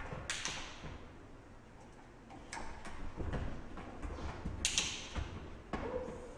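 Footsteps, scuffs and squeaks of shoes and a dog's feet on rubber gym flooring, with two louder scuffs about a third of a second in and near five seconds in.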